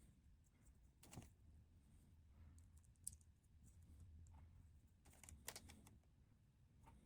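Faint clicks of small plastic LEGO pieces being handled and snapped together: a few scattered clicks, with a short cluster about five seconds in.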